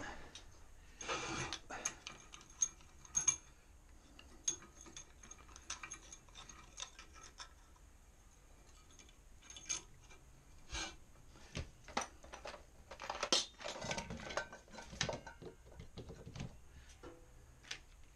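Scattered clanks, clicks and rattles of hand tools and metal being handled as a small aluminium plate is set in a drill-press vise, busiest about a second in and again near two-thirds through. The drill press is not running.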